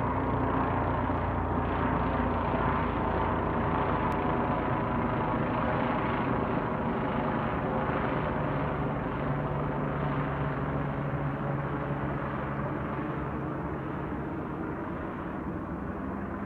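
Bell 429 GlobalRanger twin-turbine helicopter climbing away after takeoff: steady rotor and turbine noise with a few held tones, slowly fading over the last several seconds.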